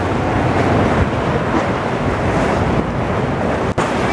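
Wind buffeting the microphone over sea water washing around a kayak: a steady, loud rushing noise, cut off for a split second near the end.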